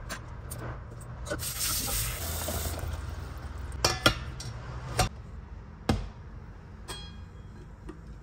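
Tap water running briefly over cubed pumpkin in a stainless steel steamer basket, then several sharp metallic clanks of steel cookware being set down and handled, the last followed by a short metallic ring.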